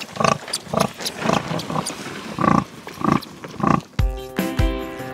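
A sow grunting in a steady rhythm, about two short grunts a second, while her litter of piglets suckles: the nursing grunts a sow gives during milk letdown. About four seconds in, music with a deep, recurring beat starts.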